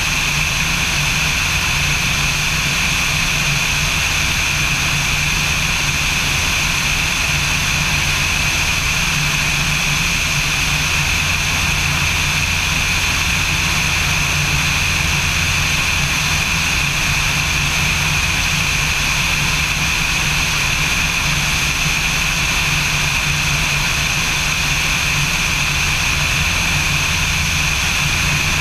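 Engine and propeller of a single-engine light aircraft running steadily in flight, heard from a camera mounted on the airframe.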